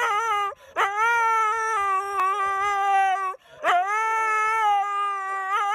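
Husky howling in long drawn-out calls, each sliding up at the start and then holding its pitch. One call ends about half a second in, a long one follows, and another begins just after the halfway point.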